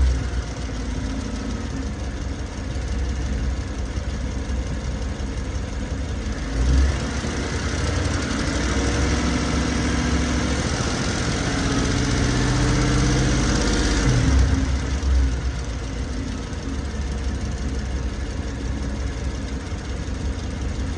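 Car engine running steadily, making the noise that appeared after a dealer visit, with brief low thumps about 7 and 15 seconds in.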